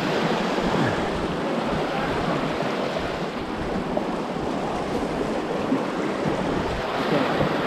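Steady rush of the Saugeen River's fast floodwater.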